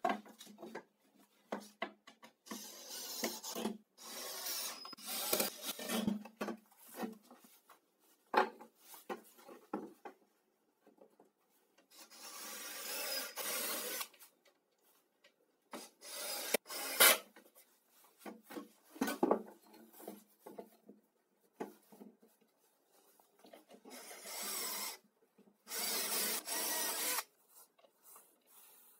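Wooden parts being handled on a wooden workbench: a laminated particleboard panel and pine legs scraping and rubbing in several stretches of a second or two, with scattered knocks and one sharp click.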